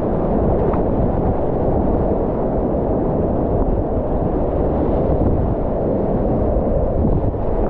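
Whitewater rapids rushing steadily and loudly around a kayak, a deep, dull rush with little hiss.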